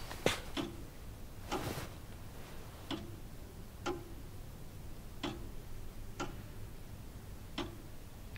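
Clock ticking slowly, about one tick a second, the gaps alternating short and long in a tick-tock beat, over faint room tone.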